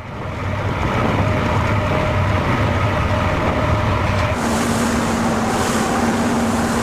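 Submarine running: a steady engine hum with water rushing. About four seconds in, it changes to a steadier, higher hum with a louder wash of water.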